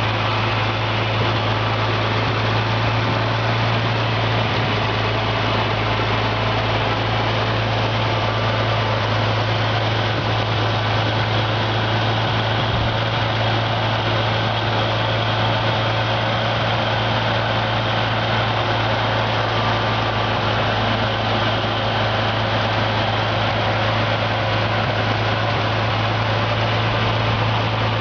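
International Harvester Farmall 460's six-cylinder gasoline engine idling steadily, a deep, even hum.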